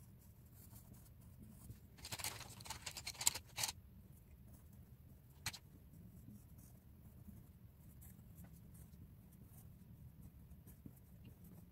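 Coloured pencil scratching faintly on paper. About two seconds in comes a short burst of clattering and rustling as the pencils are swapped, then a single click a few seconds later.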